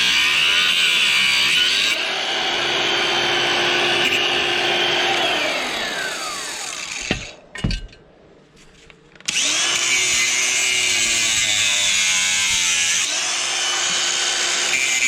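Angle grinder cutting metal. About halfway through, its whine falls away as it spins down and stops briefly with a couple of knocks, then it starts up again with a rising whine and runs on.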